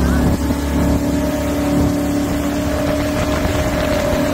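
Jet boat engine running hard with a steady drone, over rushing wind and water noise. There is a brief drop in level about half a second in.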